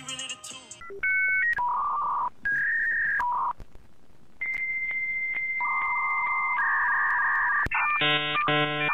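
A series of electronic telephone-style tones. It starts with short two-note dialing beeps, then runs into long steady tones that shift between a few pitches. Near the end come two buzzy pulses.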